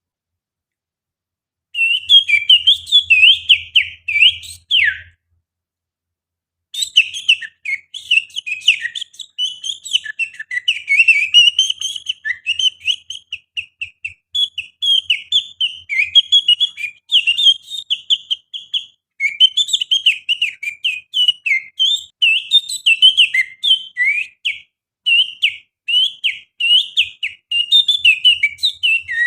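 A man whistling an imitation of an oriental magpie-robin (kacer) song with his little finger: rapid, varied high chirps and trills. It breaks off for about two seconds a few seconds in, then runs on without a break.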